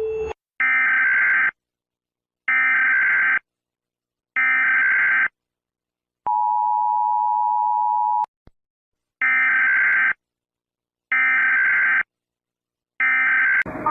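Emergency Alert System broadcast tones. Three buzzy digital data bursts about a second apart (the SAME header) come first, then a steady two-second two-tone attention signal and a click. Three more identical data bursts (the end-of-message code) follow.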